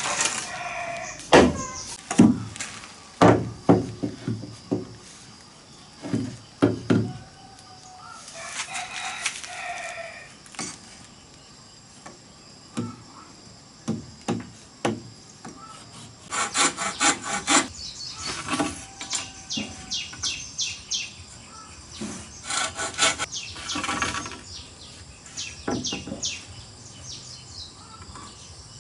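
Hollow knocks of a wooden club driving a bamboo joint onto a bamboo post, several blows in the first few seconds. Later come quick runs of machete strokes on green bamboo, with birds chirping.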